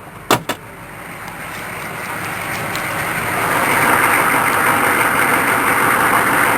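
Two short clicks, then a pickup truck's engine running and getting louder over about three seconds before holding steady.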